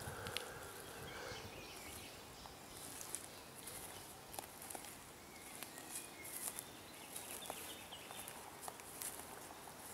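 Faint footsteps through long grass, with scattered faint high chirps and ticks from birds or insects in the background.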